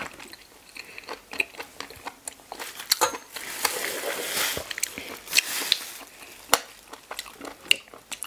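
Close-up mouth sounds of chewing razor clam meat: wet smacking with crunchy clicks and crackles, densest about halfway through.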